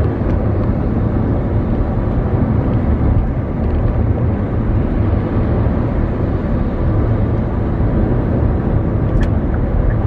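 Steady road and engine noise inside the cabin of a moving car: an even, low rumble.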